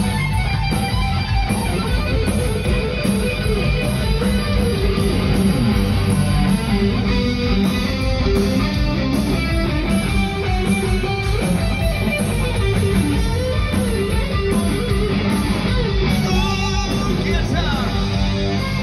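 Live rock band playing loud, with electric guitar.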